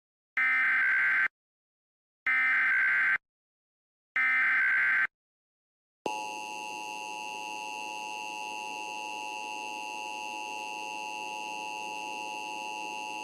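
Emergency Alert System alert opening: three short bursts of SAME digital header data, about two seconds apart, then the steady EAS attention tone starting about six seconds in and holding on. It signals an incoming tornado warning.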